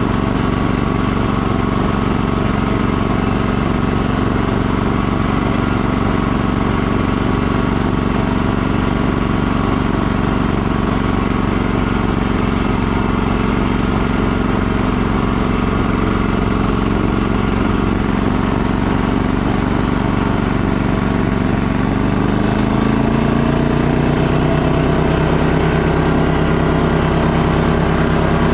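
Snowblower's small gasoline engine running steadily under load while the blower throws snow. Near the end the engine note rises and holds at a higher pitch as the machine stops throwing snow and the load comes off.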